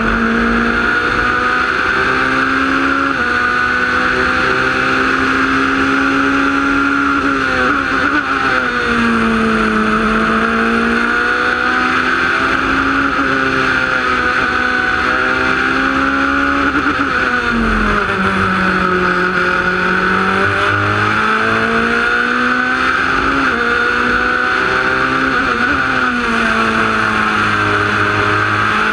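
Onboard sound of a Wolf GB08-Honda sports prototype's engine running hard at racing speed, its pitch dropping sharply three times and climbing back as it slows and shifts for corners. A steady high rush sits over the engine throughout.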